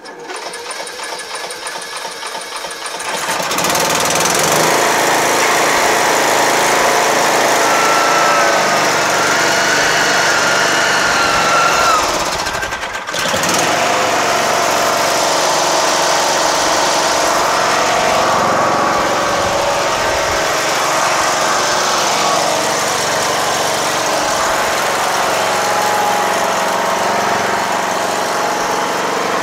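Riding lawn tractor's rebuilt engine being cranked and catching after about three seconds, then running steadily through its repaired, welded muffler, with a brief dip in level about twelve seconds in. It runs without any sign of exhaust leaks.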